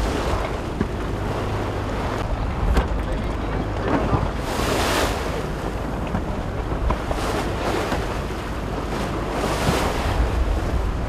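Wind buffeting the microphone over the rush of choppy sea, with waves splashing up louder in surges every few seconds.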